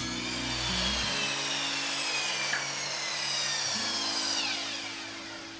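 Power saw cutting a plywood strip, its high motor whine falling slowly in pitch and then dropping away about four and a half seconds in as the blade spins down. Faint background music underneath.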